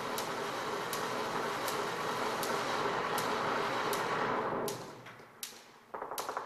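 Live experimental noise performance: a dense rushing noise with a sharp click about every three-quarters of a second. The noise dies away about five seconds in, leaving scattered clicks and knocks.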